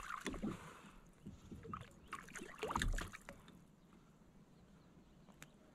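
Handling noise from a freshly caught perch being unhooked by hand in a kayak: small clicks and knocks of hook and fish, with two dull thumps about three seconds apart.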